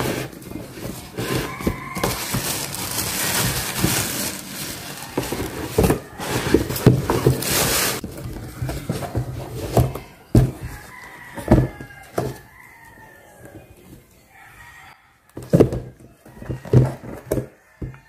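Tissue paper rustling and a cardboard shoebox being handled, with dense crinkling early on and then scattered knocks and thumps as the sandals are lifted out.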